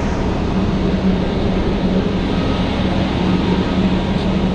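Ship's machinery running: a steady low drone with a constant hum under an even wash of noise.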